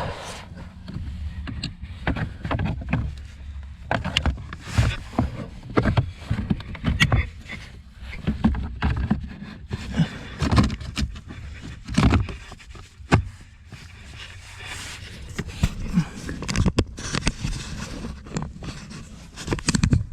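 Irregular knocks, clicks and scrapes of a car's plastic blower-fan motor housing being handled and offered up into its mounting under the dashboard.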